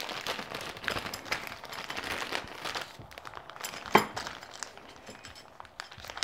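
A clear plastic bag of small mounting parts crinkling as it is handled, with a dense crackle over the first three seconds, then quieter. A single sharp click comes about four seconds in.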